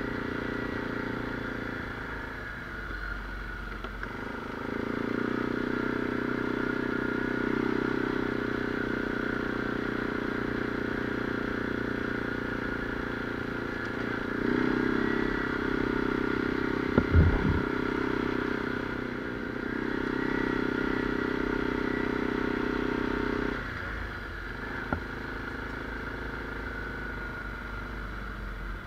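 ATV engine running while riding a dirt trail, its note getting louder under throttle for two long stretches and easing off in between. There are a couple of sharp knocks a little past halfway and a smaller one near the end.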